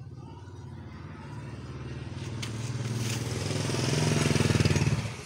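Motorcycle engine running, growing steadily louder, then dropping away suddenly near the end.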